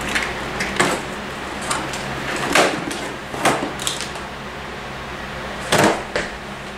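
Rummaging through a cardboard box of cables: scattered rustles, scrapes and knocks of cords and plugs being moved around, loudest about two and a half seconds in and again near the end.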